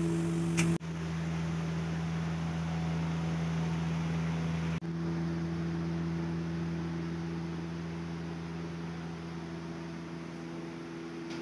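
Steady low hum with a faint hiss, cutting out briefly about a second in and again near five seconds.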